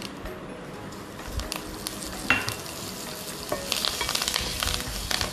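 Hot ghee tempering in a pan sizzling and crackling with mustard seeds and dals. About three and a half seconds in, fresh curry leaves go into the fat and the crackle grows denser and louder as they sputter.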